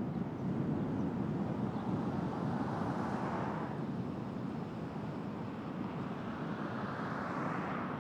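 Steady road and engine noise of a car driving slowly down a town street, with a brief swell about three seconds in.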